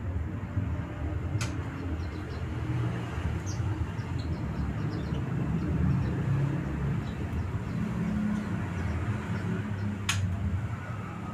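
Low, steady rumble of a passing motor vehicle, loudest around the middle, with faint short high bird chirps and two sharp clicks, one about a second in and one near the end.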